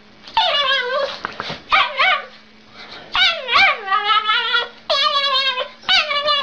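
A dog whining and yipping: a run of about six high cries that bend up and down in pitch, with a longer drawn-out one in the middle.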